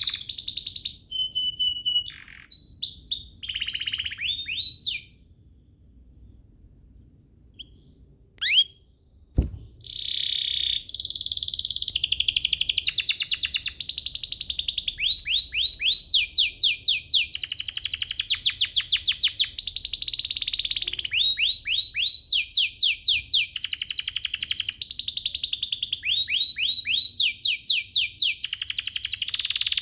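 Domestic canary singing long trilling song: rapid runs of repeated high sweeping notes, several a second, with phrases changing every second or two. The song breaks off for a few seconds near the start, with a single sharp knock about nine seconds in, then runs on almost without pause.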